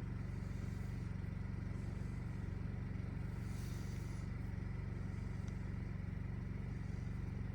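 An engine idling: a steady low hum with a fast, even pulse.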